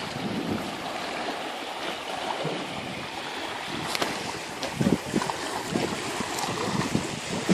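Wind blowing on the microphone over small waves lapping against a rocky, weedy shoreline, with a few low gusts buffeting the microphone about five seconds in and near the end.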